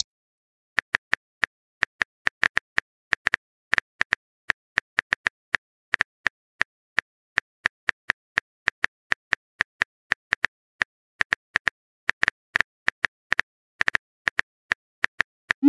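Phone keyboard typing clicks from a texting app: short, high ticks, unevenly spaced at about three or four a second, as a message is typed out key by key.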